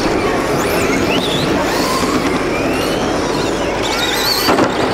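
Electric motors of radio-controlled model cars whining as they race, several whines rising and falling in pitch over a dense, steady din. A sharp knock sounds near the end.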